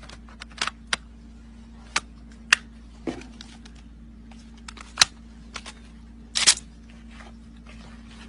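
A series of sharp mechanical clicks and knocks, about seven, irregularly spaced, over a steady low hum.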